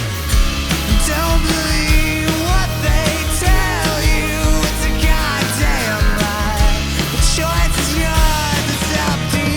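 Rock band playing an instrumental passage with drums, bass and guitars, a lead melody line bending up and down in pitch over it.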